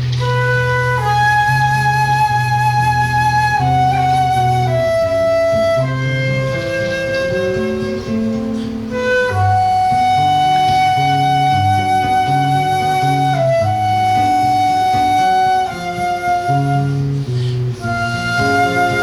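Flute and seven-string guitar duo playing live: the flute holds long, slightly wavering melody notes over the guitar's plucked bass line and chords.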